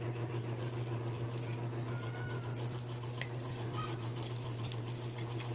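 Chopped garlic sizzling and crackling in hot reused frying oil in a wok as it is stirred with a spoon, over a steady low hum.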